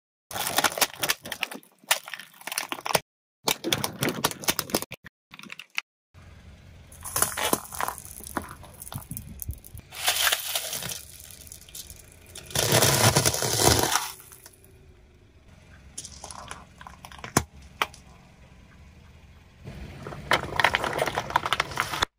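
Brittle objects cracking and crunching as a car tyre rolls over and crushes them, in several separate bursts of crackling, the loudest about thirteen seconds in. A car engine hums low underneath through the second half.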